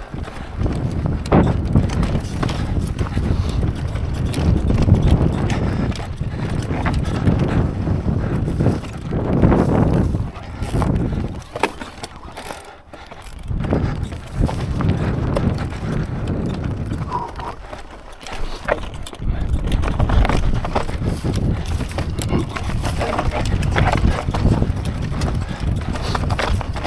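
Mondraker Crafty electric mountain bike ridden over rough, rocky ground: tyres rumbling over rock with a constant run of knocks and rattles from the bike, easing off briefly twice.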